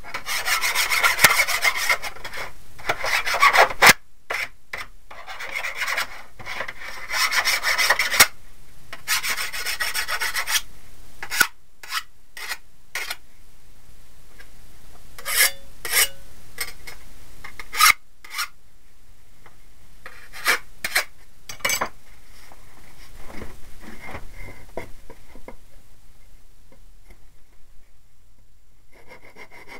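Hand file scraping in quick back-and-forth strokes along the edges of a thin steel saw-blade strip, knocking off burrs. After about ten seconds the steady filing gives way to scattered sharp clicks and short scrapes, which grow fainter near the end.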